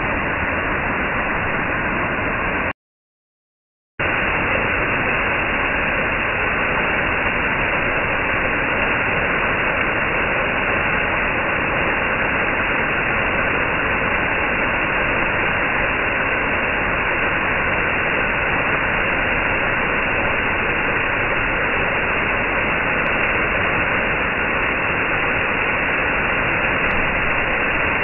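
Small forest waterfall splashing down a rock face: a steady rush of falling water. It cuts out completely for about a second near the start, then resumes.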